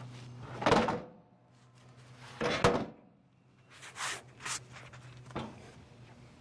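Heavy wooden thunks of freshly sawn red oak lumber being handled on the sawmill: two loud knocks, then a few lighter ones, over a faint low steady hum.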